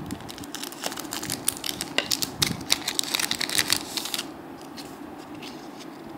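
Foil booster-pack wrapper being crinkled and torn open, a dense run of crackles that stops about four seconds in.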